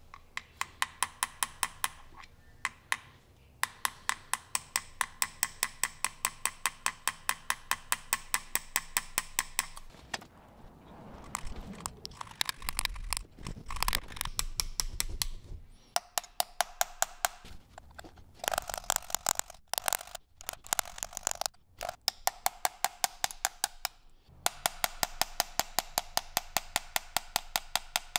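Small hammer tapping a chisel into wrought iron, about four light metallic taps a second in long runs, scooping out a channel for a bronze inlay. The tapping stops for a few seconds about halfway through, where there is low handling noise.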